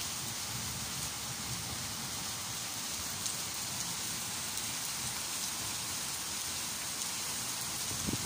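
Heavy summer rain falling steadily, a dense even hiss with scattered sharper drop ticks.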